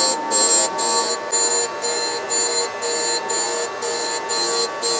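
Brown & Sharpe 618 Micromaster surface grinder's wheel grinding cast iron under flood coolant. It makes a steady high whine that drops out briefly about three times a second.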